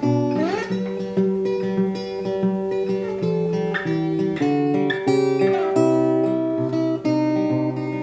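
Acoustic guitar playing plucked and strummed chords, with a note sliding up in pitch about half a second in. It is picked up by a Sennheiser MKE600 shotgun microphone mounted on the camera, some distance from the player.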